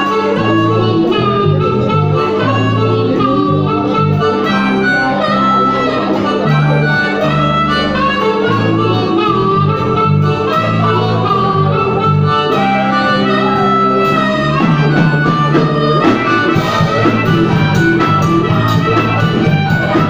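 A live blues-rock band playing: a harmonica played into a microphone over electric guitar, drums and a bass line stepping from note to note.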